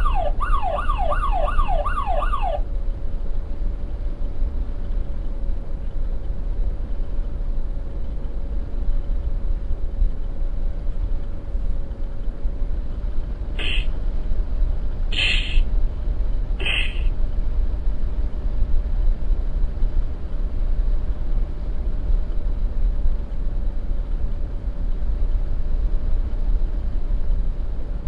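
Police siren yelping, its pitch sweeping up and down about three to four times a second, cutting off after about two and a half seconds. A steady low rumble with a constant hum follows, broken by three short bright blips near the middle.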